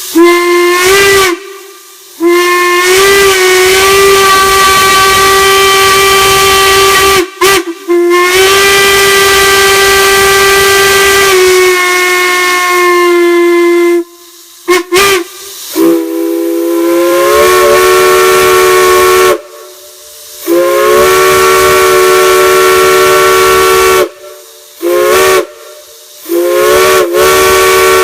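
Collector's steam whistles blown in a series of long blasts with a few short toots and hissing in the gaps. At first a single-note whistle sounds. From about halfway through, a chime whistle sounds several notes at once, each blast sliding up in pitch as it opens.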